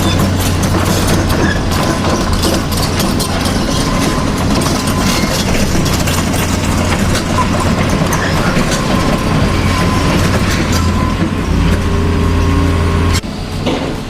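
A radio-controlled model vehicle's small electric motor and gears running steadily under load, with a low hum and a dense clatter. The sound cuts off abruptly near the end.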